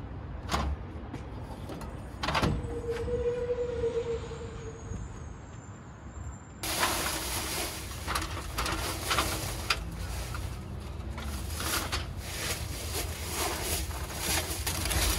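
Aluminium Little Giant ladder clanking and sliding as it is handled on a pickup bed, with two sharp knocks in the first seconds. Partway through this gives way to irregular knocks and rustling as the ladder is set up and climbed among dry leaves.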